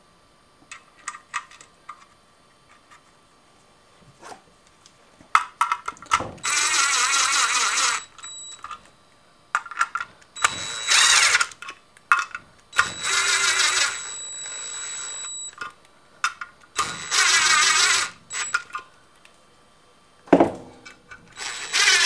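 Cordless driver with a socket spinning bolts down into a two-piece brake rotor, in five short runs of about a second each, the last one near the end. Light clicks and knocks of the bolts and the Loctite bottle being handled come between the runs.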